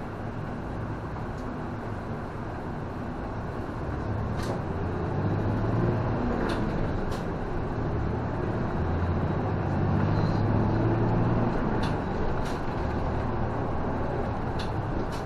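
City bus engine and drivetrain heard from inside the cab as the bus pulls away and speeds up, growing louder about four seconds in, then running along at road speed. Scattered light clicks and rattles from the cabin come through the drone.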